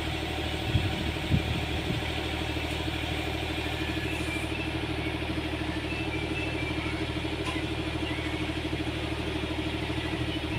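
Excavator's diesel engine running steadily with an even, fast pulsing hum. There are a couple of short knocks about a second in.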